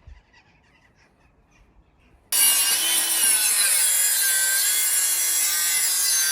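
Power saw cutting through timber: it starts abruptly about two seconds in and runs continuously, its pitch wavering as the blade works through the wood.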